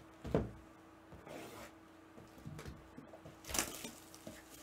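Faint handling noises as a trading-card box is moved about on the table: a soft knock about a third of a second in, light ticks, and a louder knock about three and a half seconds in, over a faint steady hum.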